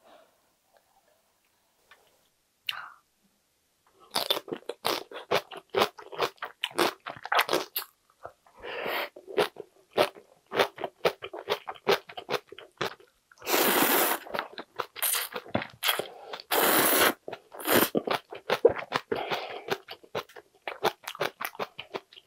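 A person eating ramen noodles: quick wet chewing and slurping clicks, with two longer slurps about midway. The first few seconds are nearly silent.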